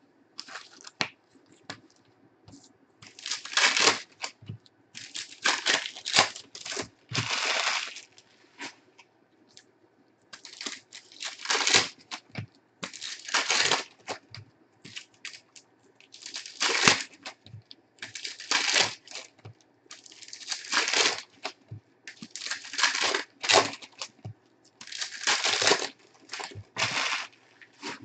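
Plastic wrappers of Panini Prizm basketball retail card packs being ripped open one after another. About a dozen crinkly tearing bursts, one every couple of seconds, the packs coming apart easily.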